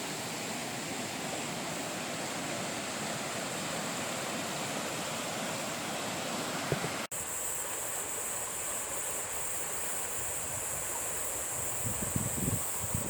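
Steady outdoor rushing noise, like wind or running water. It changes abruptly about seven seconds in to a steady high hiss, with low gusts of wind on the microphone near the end.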